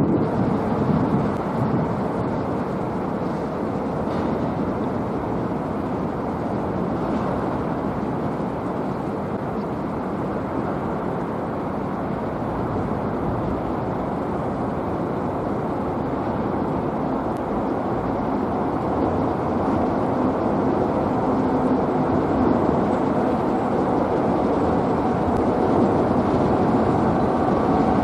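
Steady rumble of vehicle traffic on the large road bridge overhead, growing a little louder near the end.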